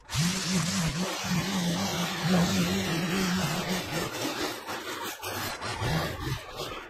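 Line trimmer running at working speed, its spinning line cutting through long, overgrown grass, with a steady pitch that wavers slightly.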